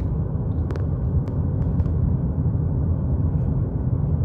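Steady low rumble of tyre and road noise inside the cabin of a Ford Maverick Hybrid cruising at about 45 mph. The truck is coasting while its battery charges.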